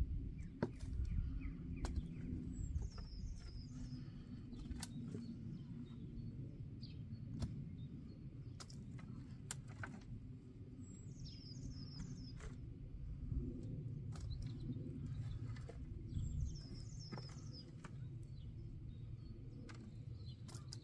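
Hands rummaging through compost in a pot, scattered rustles and soft knocks over a low rumble. A songbird sings the same short, high, descending phrase three times.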